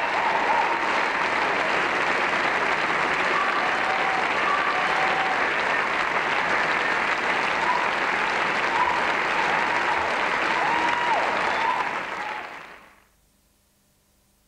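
Audience applauding, a dense steady wash of clapping. It fades away about twelve seconds in, leaving near silence.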